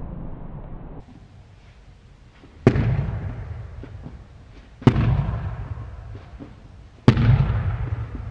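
Three heavy booming hits about two seconds apart, each a sharp crack followed by a long rumbling fade: dramatic impact sound effects, with the tail of an earlier boom fading out in the first second.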